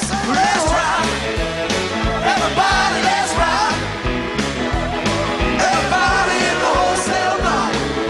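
Rock song with a lead singer over a steady drum beat and bass.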